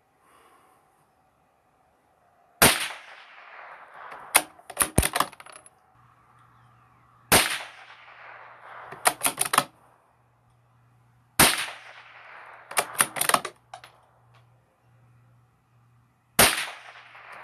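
Bolt-action .22 LR rifle firing CCI Stinger hypervelocity rounds: four sharp shots about four to five seconds apart, each trailing off in an echo. Each shot is followed a second or two later by a quick rattle of clicks as the bolt is worked to eject the case and chamber the next round.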